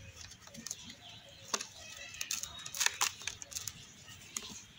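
Dry cup-moulded chunks of yellow soil crumbled and crushed between fingers: irregular gritty crackles and crunches, with two sharper crunches about a second and a half in and near three seconds, as loose soil falls back into the basin.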